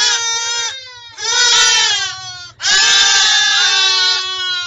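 A packed pen of young livestock bleating, many long calls overlapping at once. The chorus comes in three loud stretches with short lulls about a second in and about two and a half seconds in.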